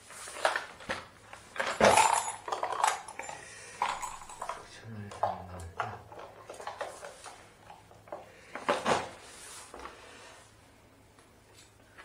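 Metal hand tools clinking and clattering as they are rummaged through in a metal tool case and set down on a tile floor: irregular knocks and rattles, loudest about two seconds in and again near nine seconds, quieter handling toward the end.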